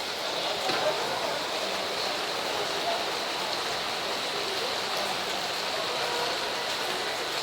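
Heavy rain falling, a steady even hiss with a few sharper drop taps.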